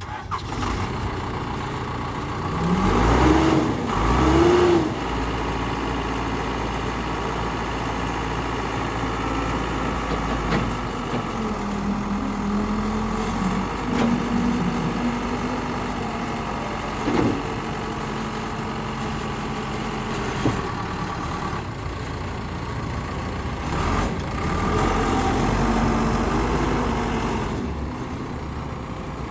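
Case 580 Super L loader backhoe's diesel engine running steadily, its pitch rising and falling as it is revved briefly a few seconds in and again near the end.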